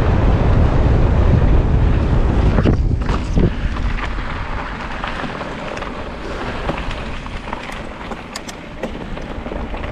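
Mountain bike rolling down a dirt singletrack, with wind buffeting the microphone: a heavy low rumble for the first three or four seconds that then eases to a lighter hiss, with a few sharp clicks and rattles near the end.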